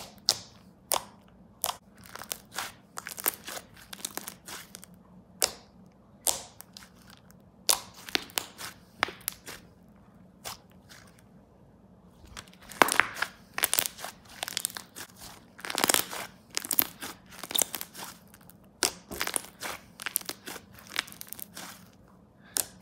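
Hands squeezing, pressing and stretching a soft clay slime, giving irregular sticky clicks and crackling pops as pockets of trapped air burst, coming thicker about halfway through.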